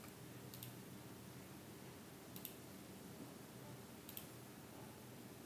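Three faint computer mouse clicks about two seconds apart, each a quick double tick, over near-silent room tone.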